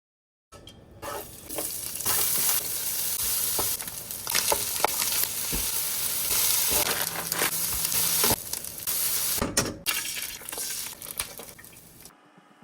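Food sizzling as it fries in a hot pan, with a utensil stirring it and now and then clicking against the pan. The sizzle cuts off suddenly near the end.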